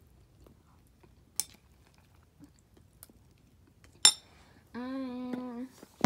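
A spoon clinks against a cereal bowl twice, the second clink louder and ringing, followed near the end by a short steady hummed 'mmm' from a person's voice.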